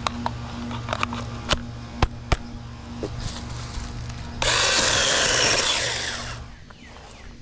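Sharp plastic clicks and knocks as a battery pack is handled and pushed back onto a cordless mini chainsaw, over a steady low hum. About four and a half seconds in, a loud whir starts and runs for about two seconds: the saw's small electric motor running briefly.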